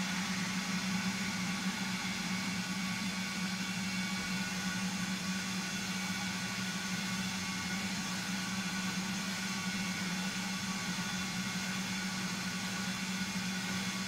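Late-1940s Gordon Major cylinder vacuum cleaner running steadily, a low motor hum with a high whine above it, while its brush nozzle is worked over carpet.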